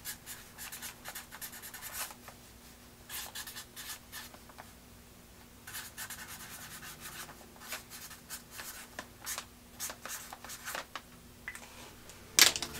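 Marker pen writing on freezer paper: runs of short scratching strokes with brief pauses between words. A louder bump sounds near the end.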